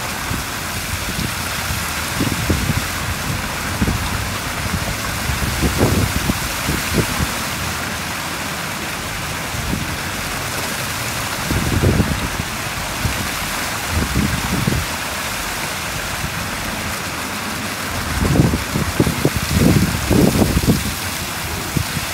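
Heavy rain falling into standing water: a steady hiss of drops splashing on the surface. Low rumbling swells come and go, strongest near the end.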